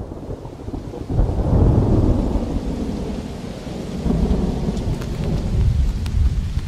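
Thunder rumbling, a deep roll that swells about a second in and again about four seconds in.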